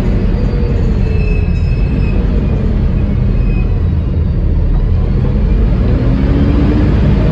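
Double-decker bus with a Voith automatic gearbox under way, a steady low rumble with the gearbox's loud hoovering whine. The whine falls in pitch in the first second and rises again near the end.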